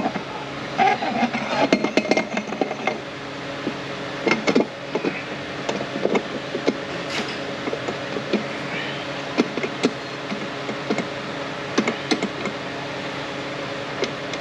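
Irregular metallic clicks and knocks of Ford 10R140 transmission parts, a bearing and planetary gearset, being handled and fitted during assembly, over a steady shop hum.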